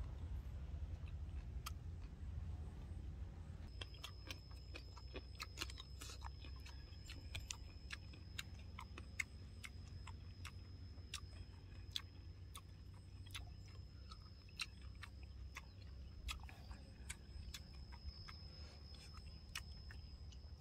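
Soft chewing and wet mouth clicks from a person eating a spoonful of algae salad, with small scattered clicks over a low steady rumble. A thin, steady high tone starts about four seconds in and holds.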